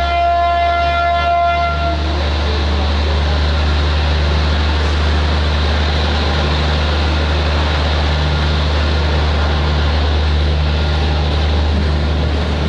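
A small local passenger train's horn sounds and stops about two seconds in. Then the train pulls away with a steady low engine rumble and wheel-and-rail noise, heard from inside the carriage.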